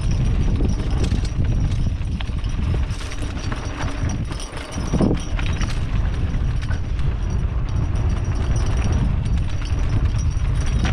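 Wind buffeting the microphone over the rattle and clatter of a mountain bike descending a rough trail, with knocks from the frame and wheels, and a short lull then a thump near the middle.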